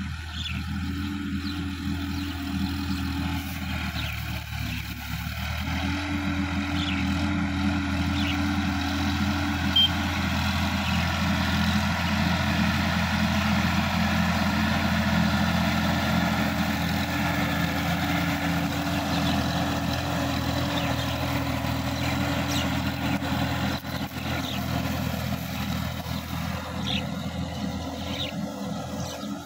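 Sonalika DI-50 RX tractor's diesel engine running steadily under load while it tills a muddy field, growing louder as it passes close and fading as it moves away. Short bird chirps come through faintly near the start and the end.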